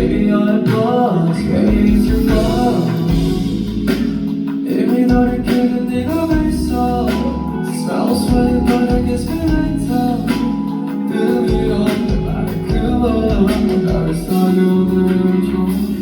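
A song performed with a male lead vocal over full instrumental backing, loud and continuous.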